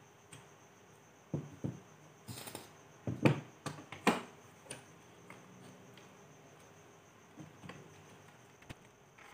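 Handling knocks and clatter of an RX 470 graphics card's metal heatsink and plastic fan shroud being fitted together: a quick run of knocks with a short scrape in the first few seconds, then a few light taps near the end.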